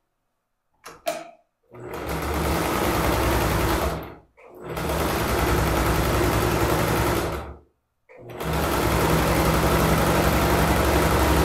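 Electric domestic sewing machine stitching a seam through fabric and batting, preceded by a couple of small clicks. It runs steadily in three spells of a few seconds each, stopping briefly twice between them.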